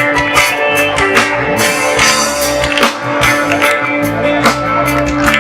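Live band playing an instrumental passage: plucked guitar with a drum kit beat over a sustained held tone.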